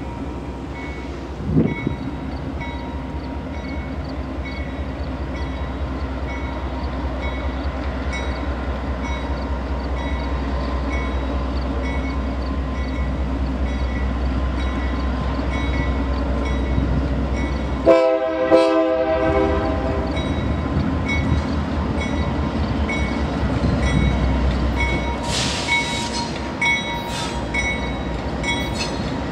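BNSF GE C44-9W (Dash 9-44CW) diesel locomotives running with a steady low rumble that grows as the stack train approaches. About two-thirds of the way through, the locomotive's air horn gives a brief blast.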